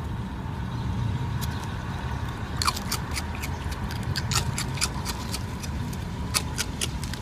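A steady low rumble, with a run of sharp, irregular clicks from about two and a half seconds in.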